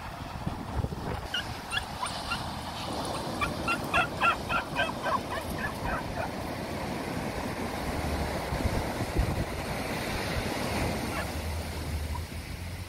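Beagle yapping while chasing other dogs: a quick run of short, high yaps in the first half, densest around four to five seconds in, then they stop. Steady surf wash runs underneath.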